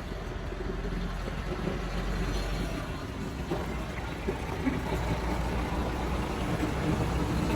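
Steady low mechanical hum, like a vehicle engine running nearby.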